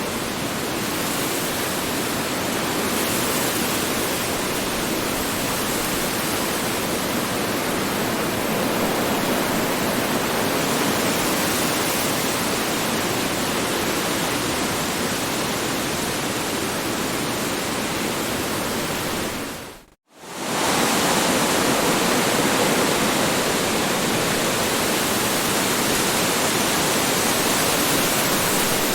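Strong wind blowing as a steady, dense rushing noise. About two-thirds of the way through it fades out to silence for under a second and then comes straight back.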